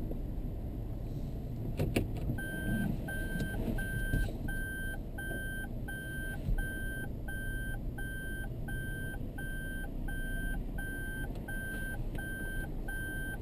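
Toyota Estima Hybrid's in-cabin warning beeper sounding short, identical beeps at a steady two a second, starting a couple of seconds in, over the low rumble of the van moving slowly.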